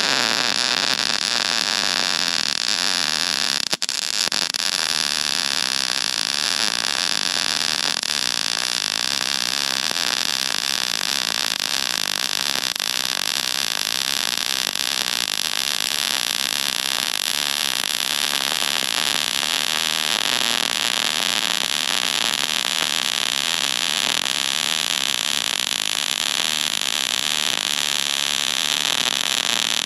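Electric arc welding on the cracked steel of an excavator bucket: the arc gives a steady, loud hiss as a weld bead is run along the break. It is broken off for a moment about four seconds in.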